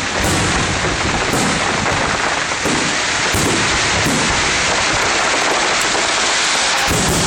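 Fireworks going off, several sharp pops, over a steady rush of wind on the phone's microphone.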